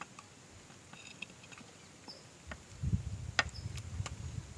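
Wooden pestle mashing banana and papaya in a clay bowl, making soft dull thuds from about halfway in. Over them come several sharp taps of a knife on a wooden cutting board, the crispest a little after the thuds begin.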